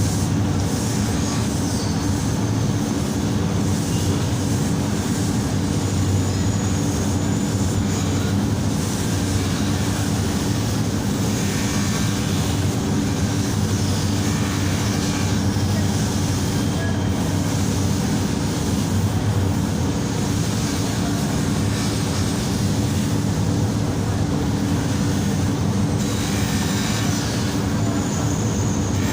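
Steady, unbroken mechanical rumble of a machine running.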